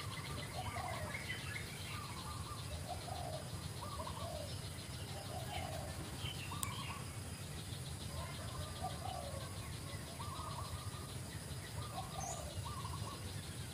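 Short animal calls repeating roughly once a second, some in two-note pairs, over a steady low rumble.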